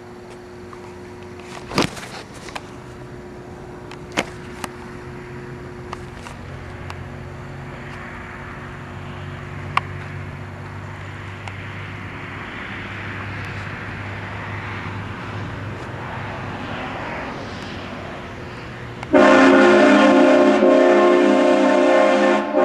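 Pickup truck running at low speed with a steady low hum and a few clicks. About nineteen seconds in, its four-horn train horn kit blasts a loud chord of several steady tones, held to the end with a brief break near the end.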